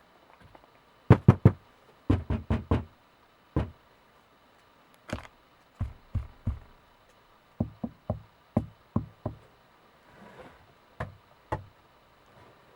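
A series of sharp knocks in irregular groups: three quick ones, a run of five, single knocks, then runs of three and six, and two more near the end. They sound dry, with little ringing, in a sound-deadened room, and faint hiss from the camera's built-in mic rises between them.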